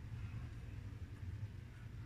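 Quiet room tone: a steady low hum with faint hiss, and no distinct sounds.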